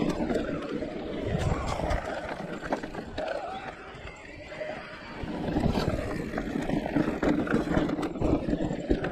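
Riding noise of a Giant Reign E+ electric mountain bike on a trail: tyres rolling over the ground and the bike rattling and knocking over bumps, with a quieter stretch about four seconds in.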